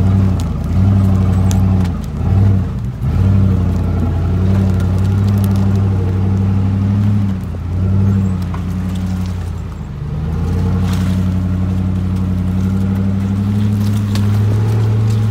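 Pickup truck engine running as the truck moves slowly. Its note dips twice, about two seconds in and again near ten seconds, then holds steady and creeps up toward the end.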